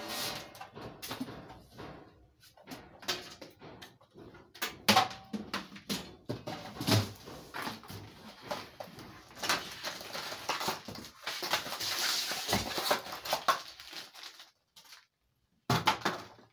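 Irregular clatter, knocks and rustling of a computer keyboard, mouse and cables being handled and connected under a shop counter. The rustling is busiest in the middle, and the noise cuts off about two seconds before the end.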